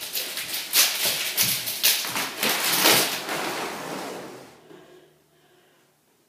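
A stack of eleven hula hoops clattering and rattling against each other as they spin, then dropping onto the hardwood floor and rattling to rest. The clatter dies away about four and a half seconds in and it falls almost silent.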